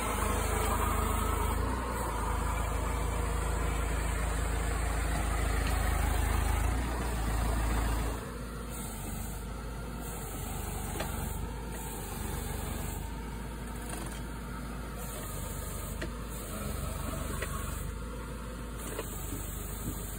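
Spedo Fruipick tractor-mounted tree shaker running with a heavy, steady low rumble as it shakes a walnut tree; the rumble cuts off abruptly about eight seconds in. After that the tractor engine idles steadily with faint light ticks.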